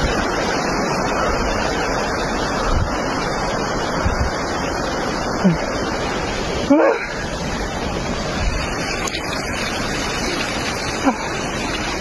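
Fast-flowing muddy floodwater rushing steadily through the trees, an even, continuous noise. A short pitched cry, like a voice, rises and falls about seven seconds in.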